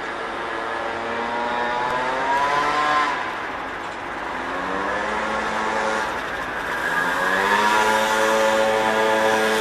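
Engine accelerating. Its pitch climbs for about two seconds, drops about three seconds in as at a gear change, then climbs again and settles to a steady pitch near the end.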